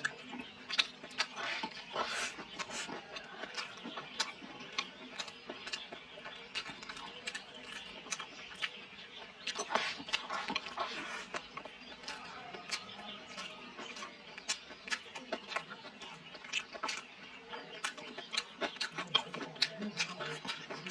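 Close-up eating sounds: a person chewing and smacking mouthfuls of rice with spicy fried meat, with many sharp irregular clicks from the mouth and from chopsticks against a ceramic bowl.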